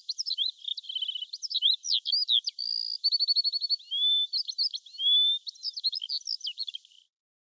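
Birdsong: a rapid, varied run of chirps, short whistles, rising glides and fast trills, stopping abruptly near the end.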